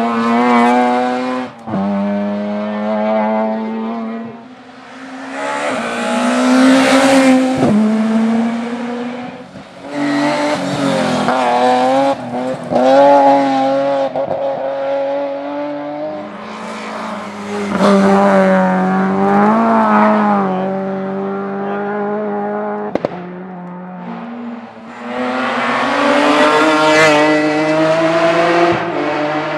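Rally car engine driven hard at high revs through a stage, repeatedly accelerating and lifting off so the revs climb and drop several times, with some tyre squeal.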